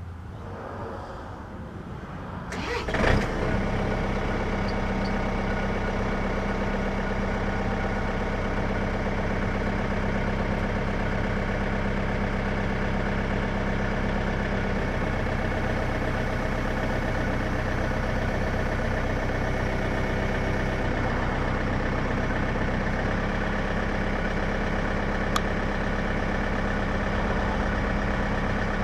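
John Deere 110 backhoe's small three-cylinder diesel engine cranking and catching about three seconds in, then running steadily at idle, its speed shifting slightly a couple of times.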